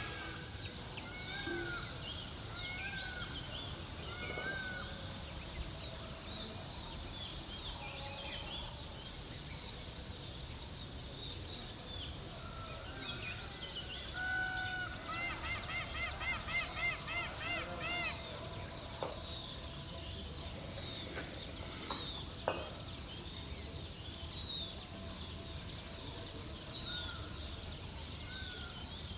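Mixed chorus of wild birds chirping and calling over a steady background hiss, with quick high trills throughout and a run of repeated ringing notes near the middle. Two sharp knocks come later.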